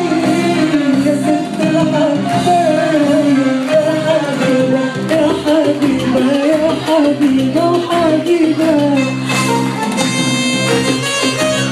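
Live amplified music: a woman singing a wavering, ornamented melody into a microphone over sustained electronic keyboard chords. About nine seconds in the singing stops and a keyboard melody carries on alone.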